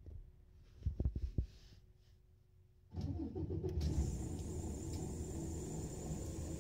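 Three short knocks, then about three seconds in the Mercedes-Benz Citaro O530 city bus's diesel engine comes in suddenly as a loud, steady, low rumble heard from inside the bus, with a thin high whine joining a moment later.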